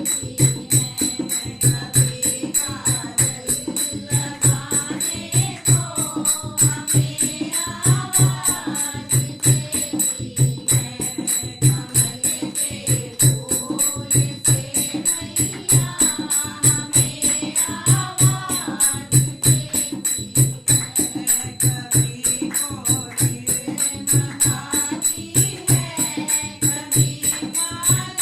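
Hindu devotional bhajan music: a steady drum beat with jingling percussion and a wavering melody line over it.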